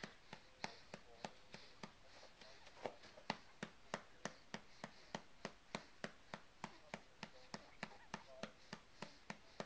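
A hand patting a baby's back to bring up a burp: soft, even pats, about three a second.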